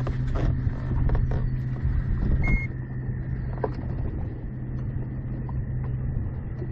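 Boat motor humming steadily under a fluctuating low rumble of wind on the microphone, with a few small handling knocks and one short electronic beep about two and a half seconds in.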